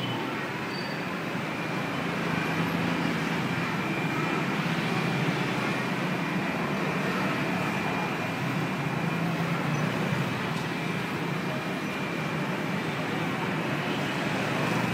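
Steady street traffic noise, with motor scooters and cars passing close by. A faint steady high tone runs under it.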